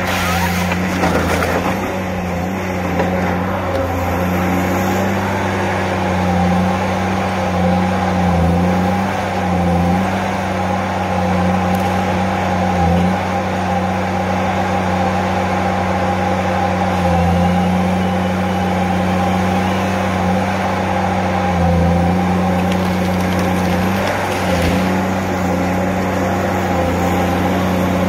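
Diesel engine of a Tigercat H822C tracked harvester running steadily under working load as the machine swings its boom, a constant drone whose pitch dips and rises slightly.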